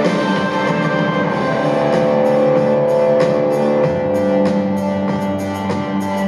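Live rock band playing an instrumental passage: guitars and sustained chords over a drum kit, with drum hits keeping a steady beat from about two seconds in.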